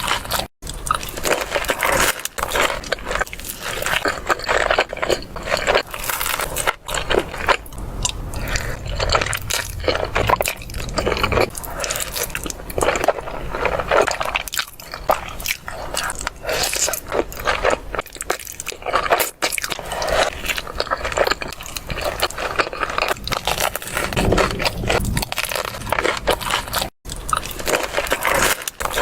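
Kinetic sand being crushed and crumbled close up: a continuous dense, grainy crunching and crumbling, broken by a couple of momentary dropouts.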